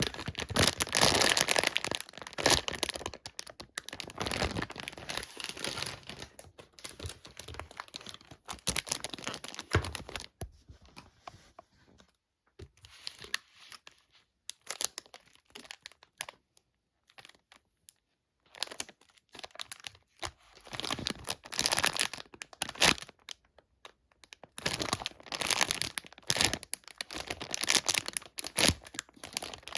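Plastic packaging being handled and unwrapped, with irregular crinkling and tearing. It is sparser and quieter in the middle stretch and busier again near the end.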